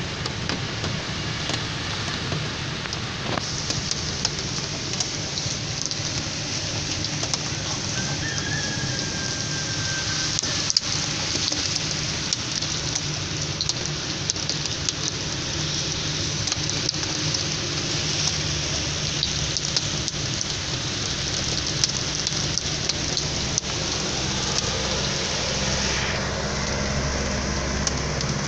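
Steady rain falling: an even hiss with many drops tapping.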